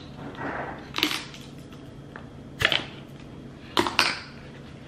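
Sharp clicks and knocks of small plastic food containers holding hardened homemade cornstarch being handled, with a soft rustle before them. There are four knocks: one about a second in, one near the middle, and two close together near the end.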